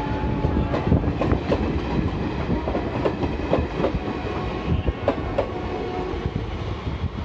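Indian Railways passenger coaches rolling past a station platform: a steady rumble of wheels on rail, with repeated sharp clacks as the wheels cross rail joints.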